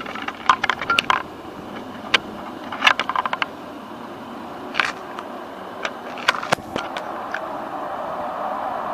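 Jet aircraft engine noise, a broad rush that swells steadily louder over the last few seconds as the F-16 approaches, with scattered sharp clicks and taps throughout.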